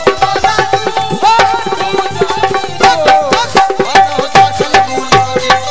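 Instrumental passage of Sindhi devotional kafi music, without singing. Hand drums play a quick, dense rhythm under a melody instrument that holds a steady note and plays short sliding phrases.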